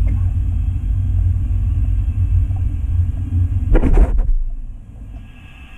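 Low, steady rumble of a model train running on its track, picked up close by. About four seconds in there is a brief loud clatter and jolt, and then the rumble falls away to near quiet.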